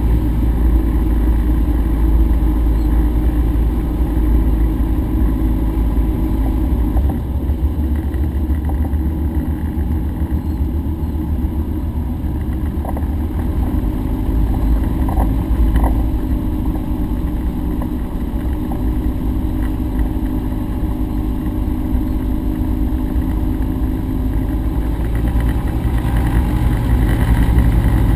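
Rotax engine of a Cessna 150 running at low taxiing power, a steady drone heard inside the cockpit, growing a little louder near the end.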